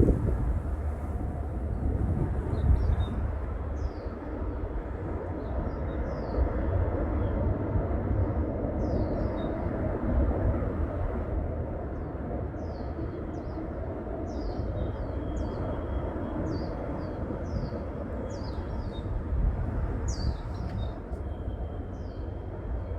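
Small birds chirping in short, quick notes, more often in the second half, over a steady low rumble.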